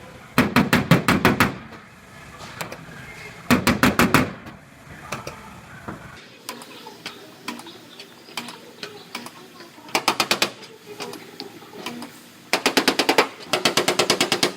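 Rapid metallic tapping on the Dodge Ram's sheet-metal bed side during paintless dent repair, with the dent being worked back into shape. The tapping comes in five short bursts of about ten strikes a second.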